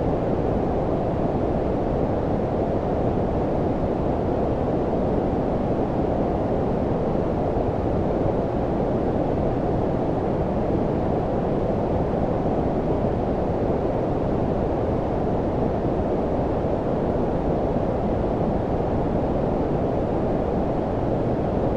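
Steady low-frequency noise, a deep rushing hiss with most of its energy below about 1 kHz and little treble, unchanging throughout: synthetic brown-style white noise for sleep.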